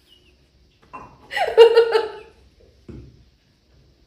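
A woman's short laugh about a second in, followed by a soft low bump, with quiet before and after.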